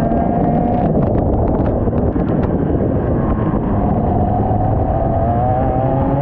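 IAME X30 125cc two-stroke kart engine heard onboard under heavy noise on the microphone. It holds high revs, eases off about a second in, then picks up and revs rising again from about three and a half seconds in.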